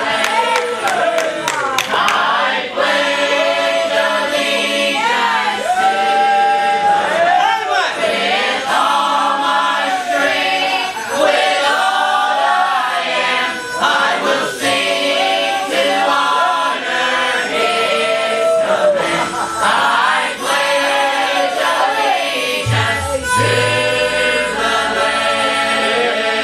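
A mixed church choir of men's and women's voices singing a gospel song together.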